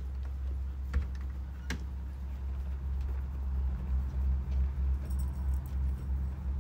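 Low rumble of wind on the microphone, with a few light clicks and ticks from the horse's halter as a young mustang is handled at the head.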